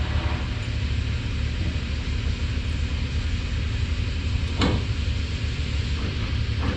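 Steady low rumble of a vehicle engine running, with one sharp knock about four and a half seconds in.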